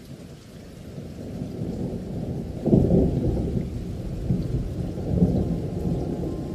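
Rain-and-thunder ambience: a deep, muffled wash of rain that starts suddenly and builds, with a thunder rumble swelling loudest about three seconds in.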